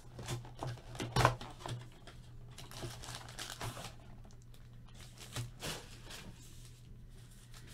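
Trading card packs and their wrappers being handled and opened: crinkling and rustling with scattered clicks and taps, the sharpest about a second in. A steady low hum runs underneath.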